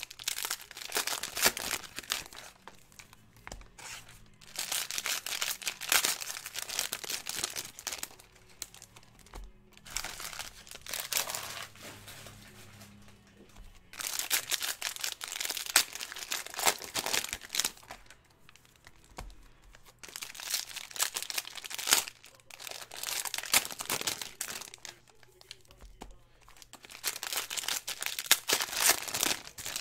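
Trading card pack wrappers being torn open and crinkled by hand, in bursts of crackling a few seconds long with quieter pauses between packs.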